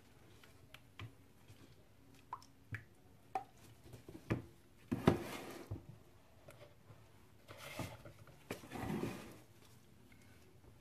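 Handling noises of plastic soap-making gear, the mixing pitcher and a plastic loaf mold, being moved about on a table: light clicks and knocks, a sharp knock about five seconds in, and two brief scraping swishes near the end.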